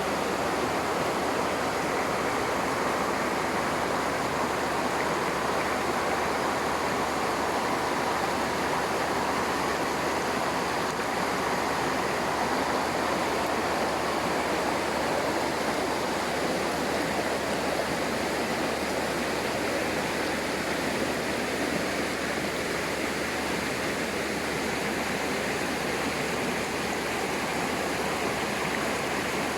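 Waterfall and stream water rushing over rocks, a steady, even roar of falling and flowing water.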